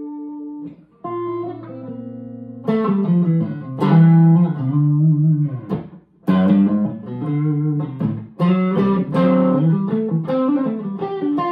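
1961 Gibson SG Special electric guitar played clean through an amp on its neck P-90 pickup, volume turned down to 6: chords and single-note lines with string bends. The playing breaks off briefly about a second in and again about six seconds in.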